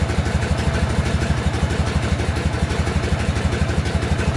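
1963 BMW R60/2's flat-twin boxer engine idling steadily with an even low pulse, with the clutch lever pulled in.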